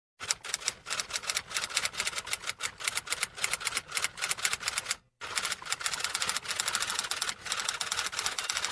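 Typing sound effect: rapid, irregular key clicks, with a brief break about five seconds in.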